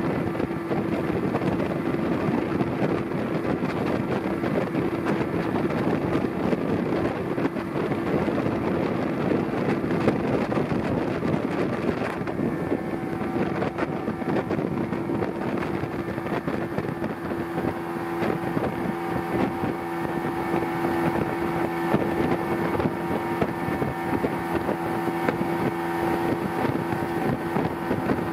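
Outboard motor of a river tour boat running steadily at speed, a constant drone.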